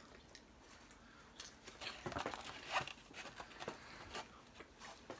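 Cookies being chewed and handled close to the microphone: irregular soft crunches, clicks and rustles.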